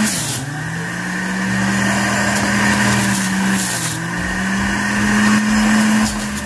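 Electric centrifugal juicer running with a steady motor whine. Its pitch drops sharply twice, at the start and about four seconds in, then climbs back slowly each time, as the motor slows under the load of celery and apples being pushed through and recovers.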